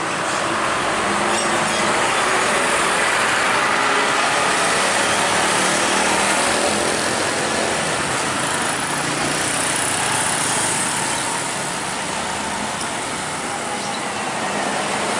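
Busy road traffic: diesel trucks, cars and motorbikes passing, a steady mix of engine and tyre noise.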